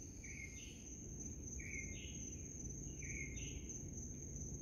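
Night insect chorus: a steady, high-pitched cricket drone, with three short two-step chirps, each stepping up in pitch, about every second and a half.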